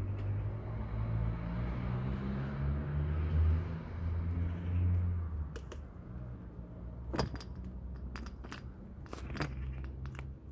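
An engine running with a low, steady hum that fades after about five seconds, followed by a few sharp clicks and knocks.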